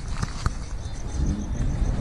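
A car engine idling with a steady low rumble, a couple of light clicks near the start, and insects chirping in a rapid, even high pulse from about a second in.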